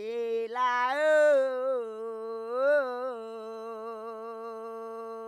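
A lone, unaccompanied voice sings or hums one long note. The pitch slides up at the start and wavers in two ornamented swells, about one and three seconds in, then settles into a steady held tone.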